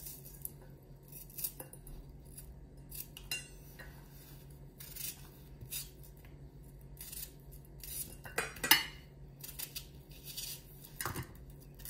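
Kitchen knife cutting a raw onion into chunks on a plastic cutting board: irregular crisp cuts and knocks of the blade on the board, the loudest about nine seconds in and again about eleven seconds in. A faint steady low hum runs underneath.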